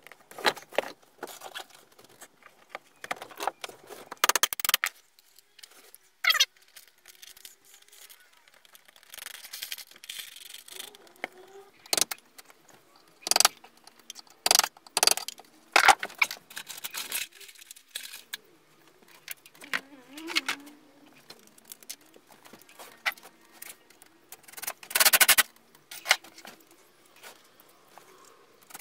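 Scattered clicks, knocks and metallic rattles of hand tools and bolt hardware being handled while a woodworking vice is bolted and screwed to a workbench, with one louder knock near the end.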